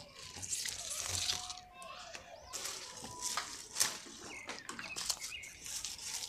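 Malabar spinach vine leaves rustling as its flower-bud shoots are picked by hand, with a few sharp snaps of breaking stems around the middle. Birds chirp in the background.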